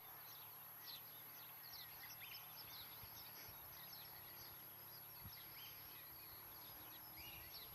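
Faint birdsong: many short chirps and whistles from small birds, scattered throughout, over a steady low hiss.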